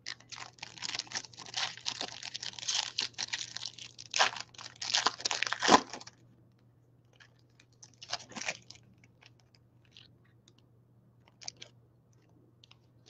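Foil wrapper of a trading-card pack being torn open and crinkled for about six seconds. After that come a few short, faint rustles and light taps as the cards are handled.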